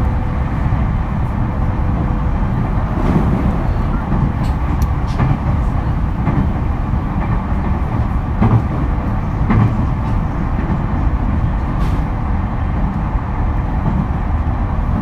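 JR East E231-series electric train heard from inside motor car MoHa E230 while running: a steady rumble of wheels on rail, with a faint steady whine and scattered knocks from rail joints.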